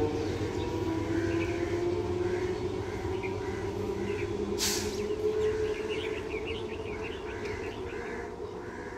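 A 12-coach electric multiple unit train running away along the track, its steady hum and rumble fading as it recedes, with birds chirping throughout. A brief sharp burst of noise about halfway through.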